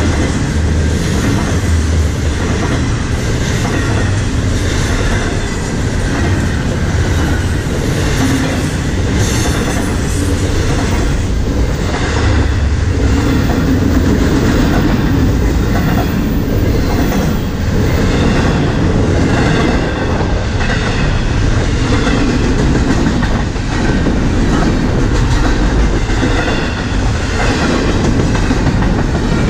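Double-stack container freight train rolling steadily past close by: a continuous loud rumble of the well cars, with wheels clacking over rail joints throughout.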